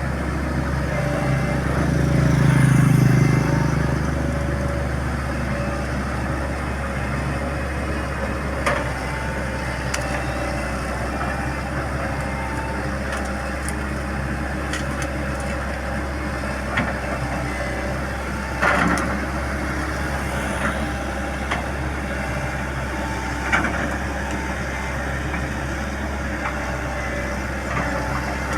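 Excavator engine running steadily, swelling louder for a moment about two to three seconds in, with a few short sharp knocks and cracks as it works on tree roots.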